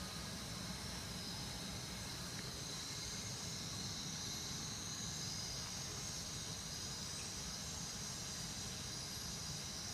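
Steady background noise: a low hum under a steady high hiss, with no distinct sounds standing out.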